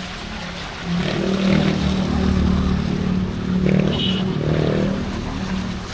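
Street traffic: a motor vehicle engine running close by, growing louder about a second in and easing off near the end.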